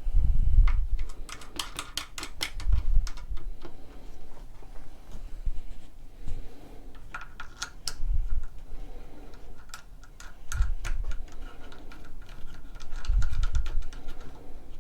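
Handling noise at a workbench: irregular light clicks and taps, bunched about one to three seconds in and again in the second half, with a few dull thumps.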